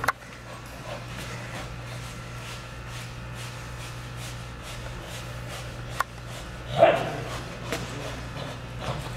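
Belgian Malinois gripping and tugging a bite sleeve, with faint scuffling over a steady low hum. One short, loud bark comes about seven seconds in, and a smaller one a second later.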